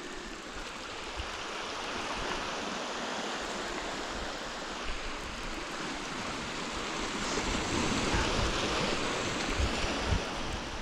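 Small waves breaking and washing over a shingle beach, a steady rushing that grows a little louder in the second half, with wind buffeting the microphone near the end.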